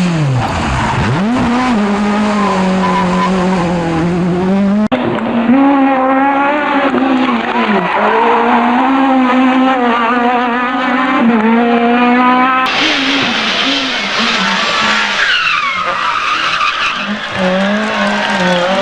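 Renault Maxi Mégane rally car at high revs, its engine and straight-cut dog-box transmission making a high-pitched scream. The pitch climbs and drops again and again as the driver bangs through the gears. The sound changes abruptly twice, about five and thirteen seconds in.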